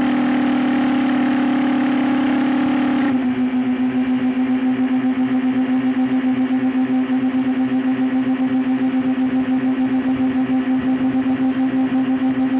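Motorboat engine running steadily. Its pitch drops right at the start and again about three seconds in, as if the throttle is eased back. It then holds an even drone with a regular throb.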